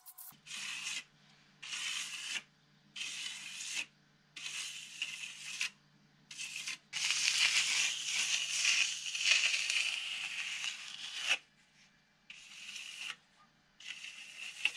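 Steel plastering trowel scraping and smoothing wet lime putty render across a wall, in repeated strokes of about a second with short pauses, and one longer stroke of several seconds in the middle.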